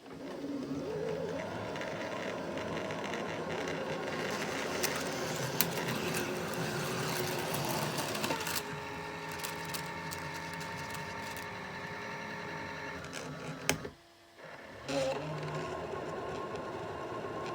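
Bambu Lab 3D printer's motors running, a steady mechanical whir made of several held tones. The tones change pitch about halfway through, and the sound stops for under a second before starting again.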